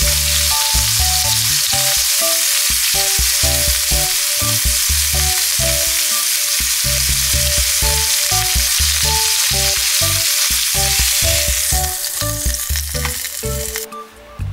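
Steak sizzling hard in hot fat in a frying pan as it is seared on its edge. The sizzle dies down near the end and stops as the steak comes out of the pan.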